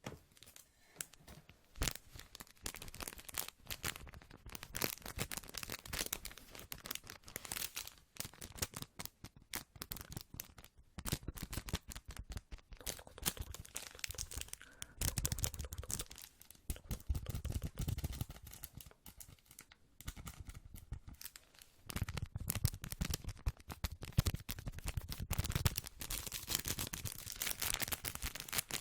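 Close-miked ASMR trigger sounds: a fast, dense run of taps and clicks with some rustling, growing fuller and louder in stretches about halfway through and again near the end.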